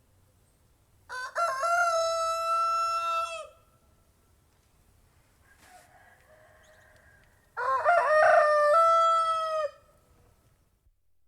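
Domestic rooster crowing twice, each cock-a-doodle-doo about two seconds long with a short rising opening and a long held final note. A much fainter call sounds between the two crows.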